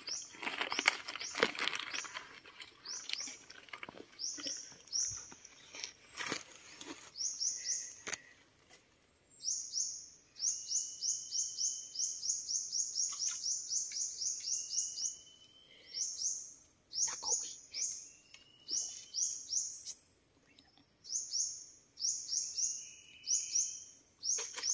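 High chirping in quick trains of about four or five notes a second, each note falling quickly in pitch, with a thin whistled note now and then. In the first seconds there is rustling and a few sharp knocks.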